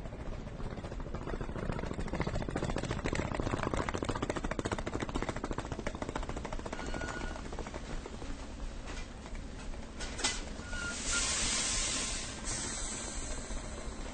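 Railway station platform ambience: a steady rumble and clatter that swells over the first few seconds, a sharp click about ten seconds in, then a burst of hiss lasting about a second and a half.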